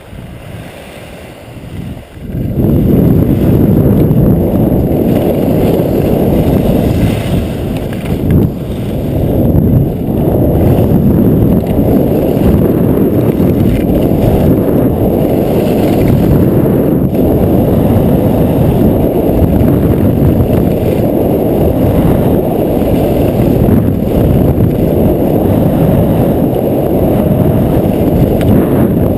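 Loud wind buffeting a GoPro's microphone as a skier runs downhill at speed, a deep rushing roar that starts abruptly about two seconds in and then holds steady.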